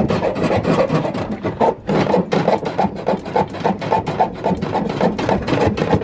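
A small hand saw cutting with quick, even back-and-forth rasping strokes, about five a second.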